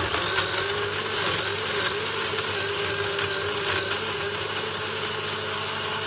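Electric countertop jug blender switched on and running steadily at speed, its motor whirring as the blades blend frozen fruit, spinach and milk into a smoothie.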